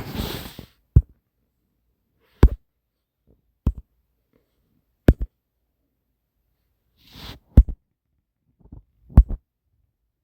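Six sharp, loud knocks spread unevenly over about nine seconds, with a short breathy hiss at the start and another just before the fifth knock.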